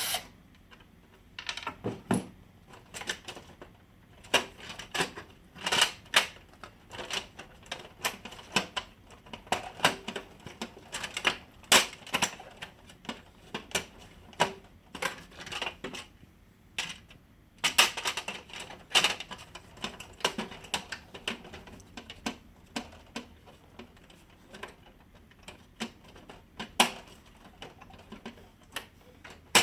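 Irregular clicks, taps and light knocks of hands working on a laser printer's plastic housing, loosening screws and fitting a misaligned cover back into place.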